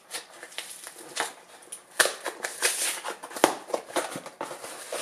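A Priority Mail box being opened and its bubble-wrap packing handled: irregular crinkling and rustling with sharp crackles and clicks, loudest about two seconds in and again a little past three seconds.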